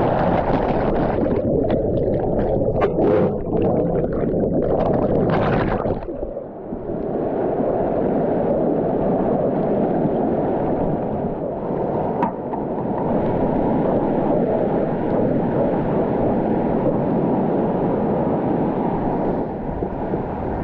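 Rushing whitewater heard on a kayaker's GoPro, with sharp splashes through the first six seconds. After a brief dip the rush goes on dull and muffled, with the higher sounds cut away.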